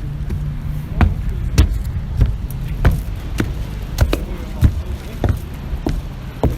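Footsteps walking up a boat's boarding gangway, a steady thud about every 0.6 seconds, over a continuous low rumble.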